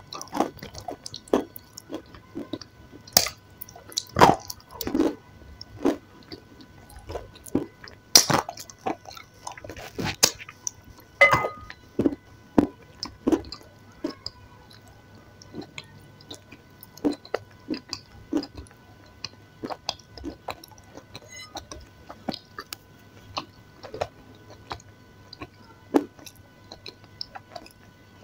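Close-up wet mouth sounds of someone eating a soft, creamy food: irregular smacks and clicks of chewing and lip-smacking, denser and louder in the first half, then sparser.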